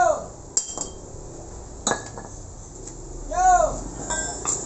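Steel tools and axle parts clinking and knocking against each other and the concrete floor as they are handled, with a brief ringing of struck metal near the end. Twice, at the start and about three and a half seconds in, a short pitched cry rises and falls, louder than the clinks.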